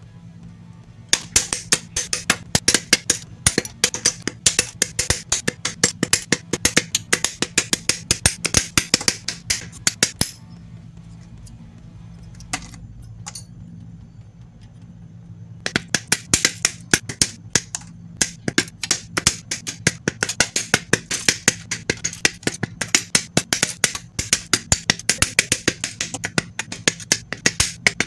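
Hobby side cutters snipping plastic model-kit parts off their runners: rapid sharp snips, several a second, in two long runs with a pause of about five seconds between them.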